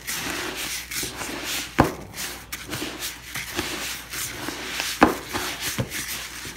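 A hand kneading trout chow mixed with egg yolk in a bucket: gritty rubbing and scraping of the crumbly feed against the bucket wall, with two sharp knocks about two and five seconds in.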